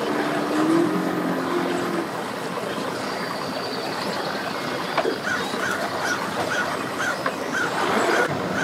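Boat outboard motors idling with churning water, a steady mechanical rumble. In the second half a short high chirp repeats about twice a second.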